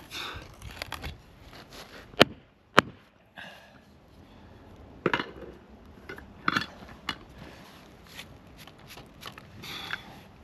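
Handling noise from a carpenter at work: scattered scrapes and rustles, with two sharp knocks a little over two seconds in and a few lighter clicks later.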